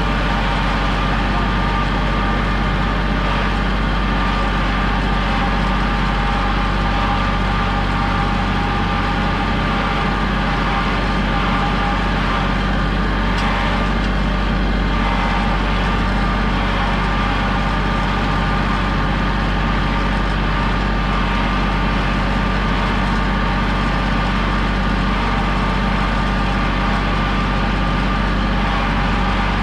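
Kubota compact tractor's diesel engine running at a steady speed while the tractor drives with a big square hay bale raised on its front loader.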